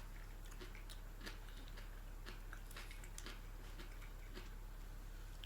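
A person chewing kimchi and macaroni salad close to the microphone: irregular soft, wet clicks several times a second, over a steady low hum.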